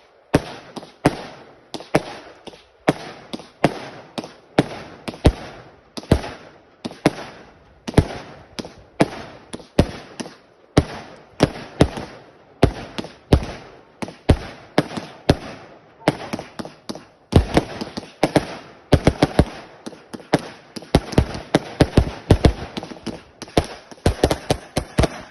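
A 168-shot "King of the Jungle" firework barrage cake firing: a rapid, unbroken string of sharp bangs, about two to three a second. The shots grow denser in the last third as the cake reaches its finale, then stop suddenly when it is spent.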